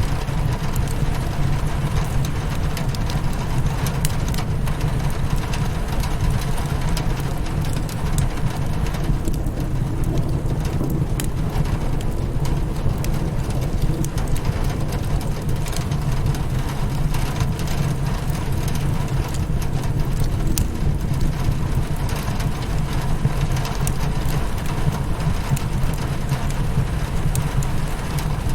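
Rain pattering on a window mixed with a crackling fire, over a steady low rumble, with many small sharp ticks and crackles scattered through it.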